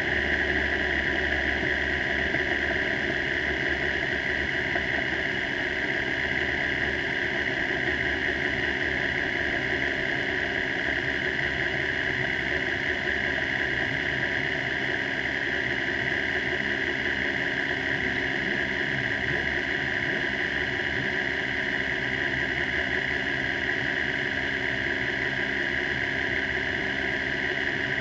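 Formula 3 single-seater's engine idling steadily at about 2,000 rpm under a constant hiss, heard from a camera mounted on the car as it rolls to a stop.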